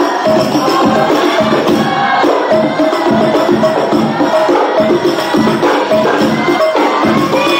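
Hadrah ensemble of rebana frame drums and a hand drum beating a fast, steady rhythm.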